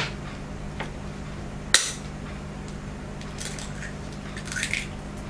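Cutlery and a balut egg handled on a table while eating: a sharp click at the start and a louder one about a second and three quarters in, then softer scraping and clicking. A steady low electrical hum runs underneath.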